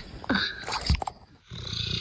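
A sleeping dog snoring: a loud, rough snore in the first second, a short pause, then softer rough breathing.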